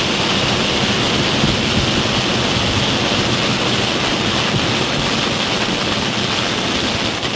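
Maltese ground fireworks (nar tal-art), spinning fire wheels and spark fountains burning at full blaze: a loud, steady rushing hiss of burning composition and spraying sparks.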